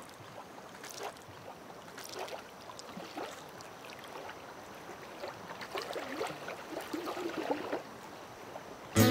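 Small lake waves lapping and gurgling against a rocky shore, with scattered little splashes that grow a bit busier toward the end. Music cuts in right at the close.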